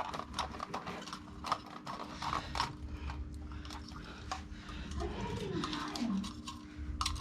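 Light, scattered clicks and knocks of small hardware and cable being handled while wiring a control panel, over a steady faint hum. A short falling tone sounds about five seconds in.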